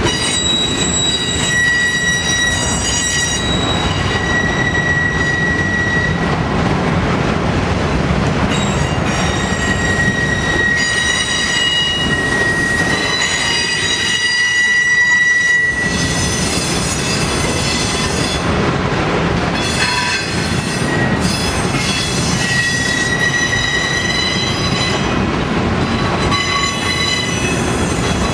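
Loaded autorack freight cars rolling past with a steady rumble, their wheels squealing in high, steady tones that fade in and out.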